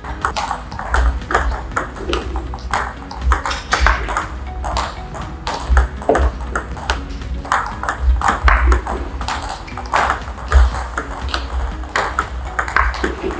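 Table tennis ball clicking off the table and the bats in a quick short-game rally of stops, with irregular sharp hits several times a second. One of the bats is a penhold bat faced with Ilius B long-pimpled rubber.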